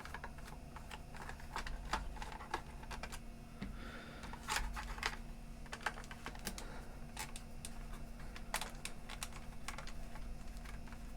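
Faint, irregular light clicks and taps of small hand tools and the plastic case of a portable CD player being handled while it is taken apart.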